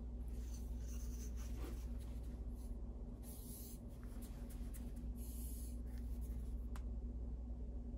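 Plastic glue bottle being handled and squeezed while it malfunctions, giving two short hissing sputters about three and five seconds in, over scratchy rubbing and a steady low hum.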